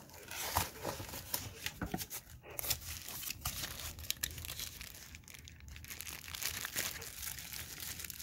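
Plastic wrapping and cardboard packaging crinkling and rustling as the contents are pulled out of the box, a dense, irregular run of small crackles and snaps.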